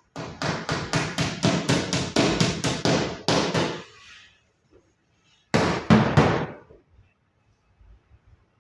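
Hammer striking in a quick even run, about four blows a second for some three seconds, then a pause and a second short run of four blows.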